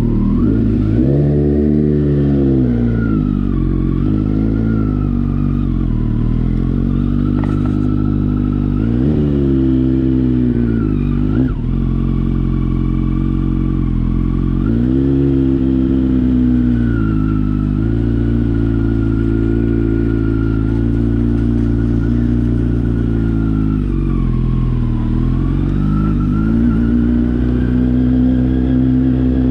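Kawasaki Z900's inline-four engine running through a replica Akrapovič aftermarket exhaust, idling with rev blips: the pitch rises and falls about two seconds in, again near ten seconds and near fifteen seconds, and dips once more near the end before settling to a steady run.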